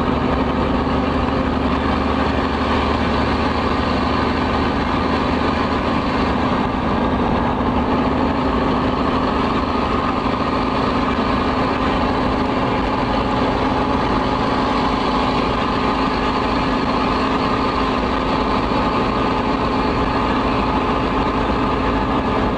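Cummins N14 inline-six diesel engine of an International Eagle semi truck running steadily under way, heard from inside the cab.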